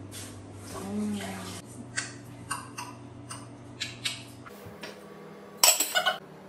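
Cookware clattering: scattered light clicks and taps, then a loud clatter of a pot and its lid near the end. A short hummed voice sounds about a second in.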